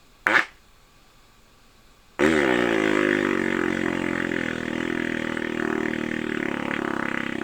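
Crude novelty noises standing in for a wailing vocal: a brief squeal that drops sharply in pitch about a third of a second in, then from about two seconds a loud buzzing, rasping blat that sags in pitch and settles into a long steady drone.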